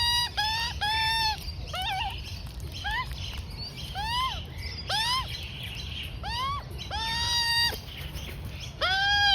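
Juvenile Australian magpie giving repeated begging calls while being fed: rising calls about one a second, a few held longer, with a wavering call about two seconds in.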